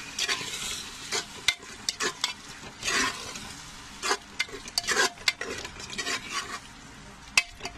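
A metal spoon stirring and scraping beaten curd into the masala inside a pressure cooker, in irregular strokes over the sizzle of the cooking masala.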